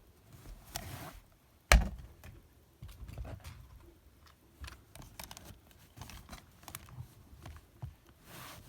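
A plastic toy dinosaur figure being handled: a run of light clicks, taps and rustles, with one sharp knock about two seconds in.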